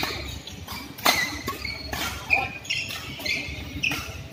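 Badminton rackets striking the shuttlecock in a doubles rally, several sharp hits about a second apart, with short squeaks of shoes on the court mat.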